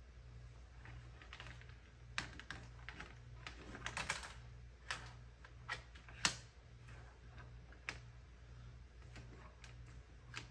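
Typing on a computer keyboard: irregular keystrokes, some in quick runs, over a low hum that pulses about twice a second.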